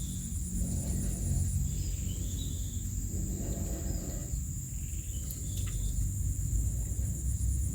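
Insects, crickets among them, chirping in a steady high buzz, with a faster pulsing trill heard at the start and again near the end, over a low rumble.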